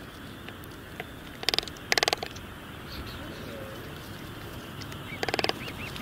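Night-time outdoor background hiss with three short, harsh, buzzing animal calls, about one and a half, two and five seconds in.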